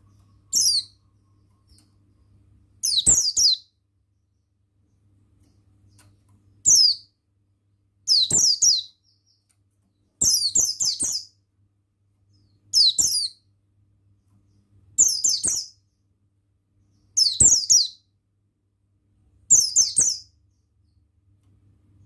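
White-eye of the buxtoni form ('pleci buxtoni') singing: nine short, high-pitched twittering song phrases, each under a second, repeated about every two seconds.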